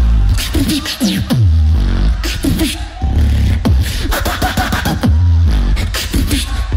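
Solo beatboxer performing a live routine into a microphone: deep bass notes that slide down in pitch, cut by sharp clicking and snare-like hits in a driving rhythm.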